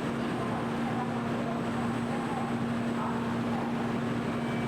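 Steady ambience of a Shinkansen station platform: an even drone with a constant low hum and faint, indistinct voices in the background.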